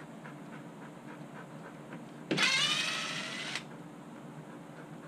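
Cordless drill-driver backing out a screw: its motor whine rises quickly and then holds for a little over a second, starting about two seconds in, and stops sharply.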